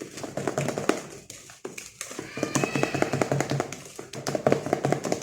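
Rapid clicking and tapping of a utensil beating cake batter in a bowl, with background music.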